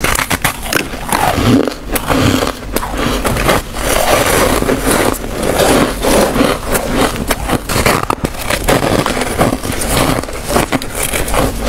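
Close-miked crunching of freezer frost being bitten and chewed, a dense run of crisp crackles and crunches, with scraping as hands break off and handle frost chunks in a chest freezer.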